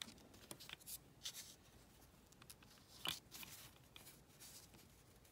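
Near silence with faint small clicks and rustles from fingers handling a model tractor on a tabletop, with one sharper click about three seconds in.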